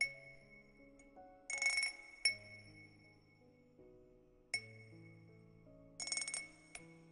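Rhythmic wind-chime cup sound: a clear bell-like ding struck four times, about every two and a quarter seconds, each ringing out, with a brief jingling shimmer of chimes twice between them, over soft background music.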